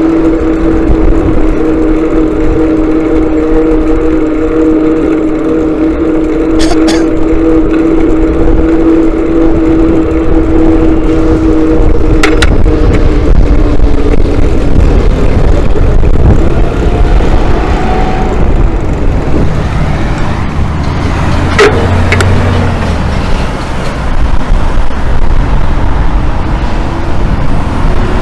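Motorcycle engine running steadily while riding on the road, with heavy low wind rumble. Its tone holds steady, then drops and wavers about halfway through, with a few sharp clicks.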